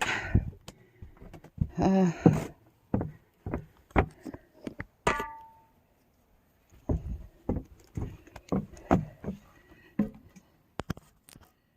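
A run of short knocks and clicks from things being handled, with a brief pitched sound about two seconds in and a higher one about five seconds in.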